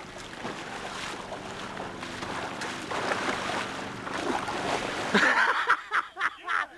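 Wind buffeting the microphone by the water, with faint voices underneath. About five seconds in, a quick series of loud, sudden sounds starts.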